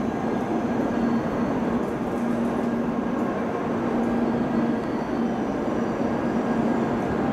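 Steady rumbling ambience of a Shinkansen station platform, with a low hum that comes and goes every second or so.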